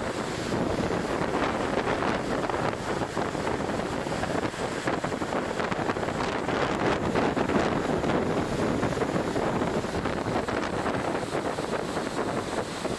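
Strong storm wind buffeting the microphone in a steady rush, over the wash of a rough, whitecapped sea.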